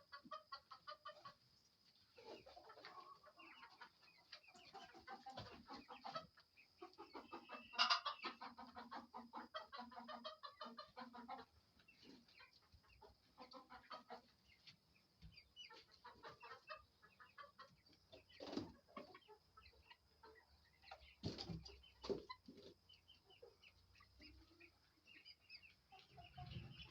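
Chickens clucking softly throughout, with a few sharp knocks about two-thirds of the way through.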